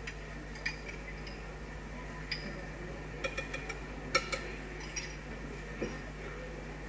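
Scattered clinks and taps of glass bottles and glassware being handled on a bar counter, with a quick cluster of clinks about three seconds in and the sharpest one about a second later, over a steady low hum.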